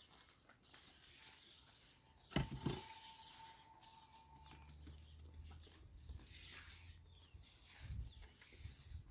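A hollow concrete block is set down on another with two quick clunks about two and a half seconds in. A faint steady tone rings on for about two seconds after; otherwise only quiet outdoor background.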